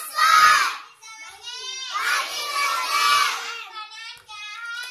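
Children's voices reciting aloud in a sing-song classroom chant, in phrases broken by short pauses about a second in and again near the end.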